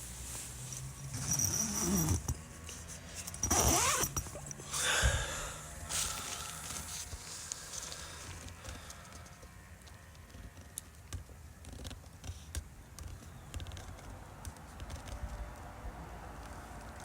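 A zip on camping gear is pulled open in three quick strokes, about one, three and a half and five seconds in, with fabric rustling. Quieter rustling and a few small clicks follow.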